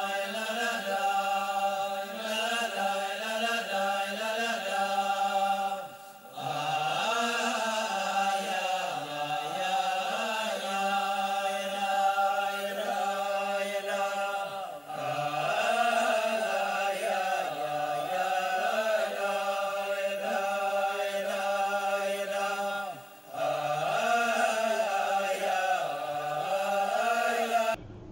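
A voice singing a slow, wordless, chant-like melody in four long phrases, with a short break between each; the singing stops shortly before the end.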